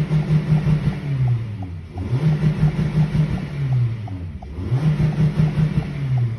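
Toyota Corolla Cross XS's four-cylinder petrol engine revved three times while parked. Each time it climbs, hangs at the top cutting out in a rapid stutter, then drops back, which is typical of the rev limiter in Park.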